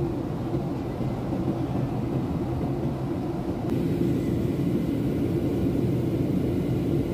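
Steady airliner cabin noise in flight: a low, even rumble of engines and airflow, getting slightly louder and brighter a little past halfway through.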